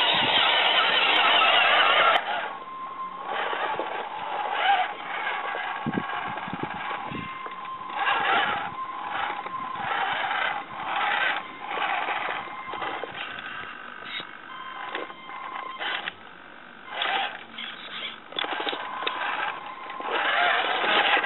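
1:6 scale RC Willys Jeep crawler on a Venom Creeper chassis: for the first two seconds its tyres crunch loudly over gravel. It then crawls over rocks in short bursts of throttle, its small electric motor and gears whining, with the tyres scraping and knocking on the stones.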